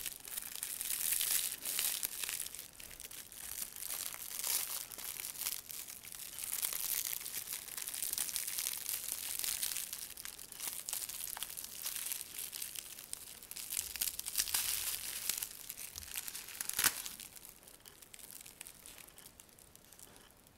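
A clear plastic sleeve crinkling and crackling as it is worked off a potted orchid by hand. There is a sharp crackle about three seconds before the end, then the rustling dies down.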